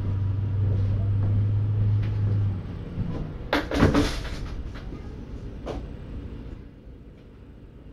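A steady low hum that cuts off about two and a half seconds in, then a door opened and shut with a couple of sharp knocks around four seconds in, and a lighter knock near six seconds.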